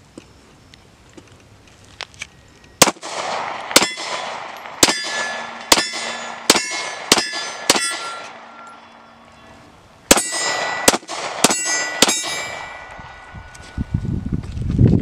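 Faxon FX-19 Patriot 9mm pistol firing at steel targets. Seven shots come about a second apart, then after a short pause four quicker shots, each followed by the ring of a struck steel plate.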